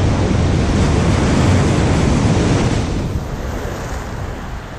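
Ocean surf rushing and breaking against a jetty, with wind buffeting the microphone. The surge is loudest for the first three seconds, then eases off.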